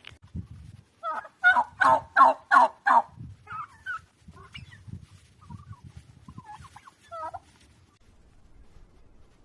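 Turkey calling: a run of about six loud calls, roughly three a second, then softer scattered calls that stop a little over seven seconds in.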